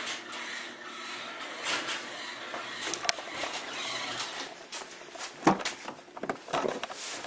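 Handling noise and footsteps as a hand-held camera is carried, with scattered light clicks and one sharp knock about five and a half seconds in.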